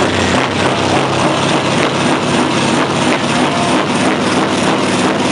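Scania R500's V8 diesel running loud through an open exhaust as it is revved, a steady heavy engine sound with a rapid regular pulsing through most of it.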